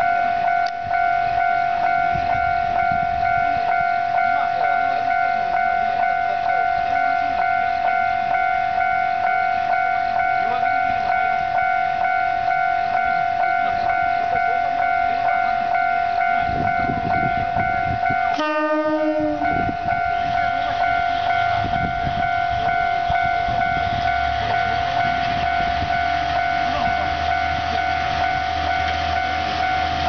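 Level crossing alarm ringing continuously with a steady high tone while the crossing is stuck in a fault, which the uploader suspects is a false activation. About two-thirds of the way through, a KiHa 48 diesel railcar sounds one horn blast lasting about a second. Its diesel engine then rumbles low and grows louder as the railcar starts moving toward the crossing.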